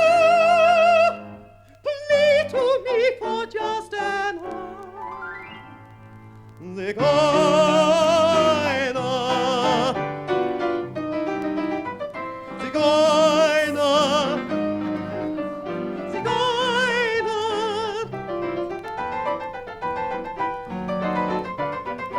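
Operatic soprano voice singing high, wordless phrases with wide vibrato over piano accompaniment. A held note breaks off about a second in, giving way to a quieter piano passage with a rising run, before the voice comes back in about seven seconds in.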